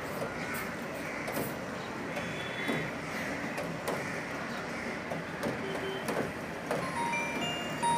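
Nokia 105 feature phone booting up: a short electronic start-up tune of a few quick beeps at different pitches plays near the end, over steady background noise.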